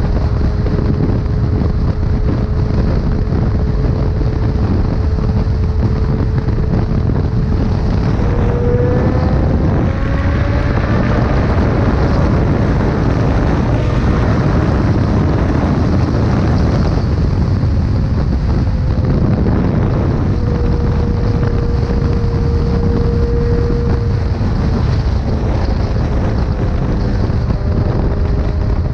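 Motorcycle engine running at speed under heavy wind buffeting on the microphone. The engine's drone holds steady, climbs in pitch about eight to eleven seconds in as the bike accelerates, then settles again.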